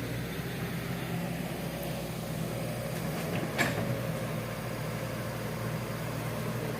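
Hitachi excavator's diesel engine running steadily, with one short, sharp knock about three and a half seconds in.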